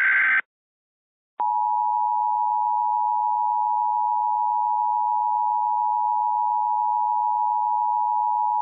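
The last Emergency Alert System SAME header data burst, a harsh digital warble, ends about half a second in. About a second later the EAS attention signal starts: the steady two-tone 853 and 960 Hz alarm that comes before an emergency alert or test message.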